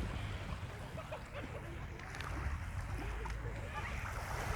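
Seaside ambience: wind rumbling on the microphone over washing surf, with faint distant voices.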